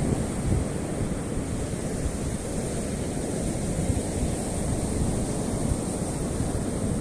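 Black Sea surf washing onto the shore in a steady rush, with wind buffeting the microphone in irregular low gusts.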